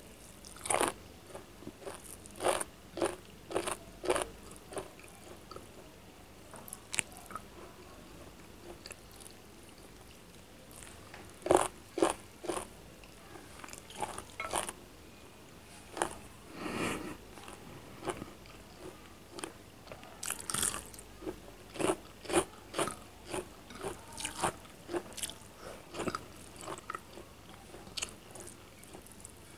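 Close-up eating sounds: a person chewing and crunching mouthfuls of chicken curry and rice, with irregular sharp crunches.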